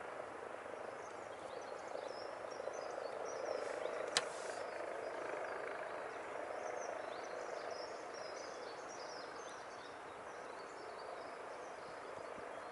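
Lakeside outdoor ambience: a soft rushing background that swells for a few seconds and then eases, with faint high chirps scattered through it and one sharp click about four seconds in.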